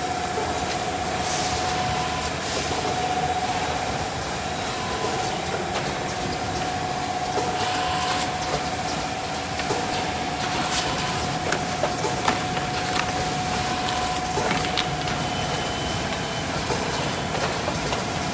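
Automatic capsule filling and packing machinery running: a steady mechanical noise with a constant whine, and scattered light clicks and clatters from the moving parts.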